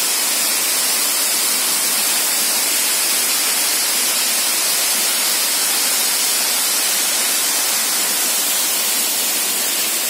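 Thin waterfall spilling down a rock face into a shallow pool: a steady, hissing rush of falling water.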